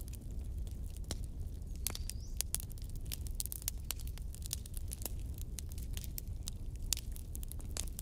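Wood bonfire crackling and popping, with many irregular sharp snaps over a steady low rumble of the flames. A faint, brief rising whistle comes about two seconds in.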